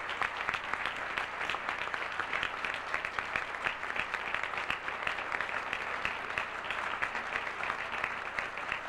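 A banquet audience applauding steadily: many hands clapping together.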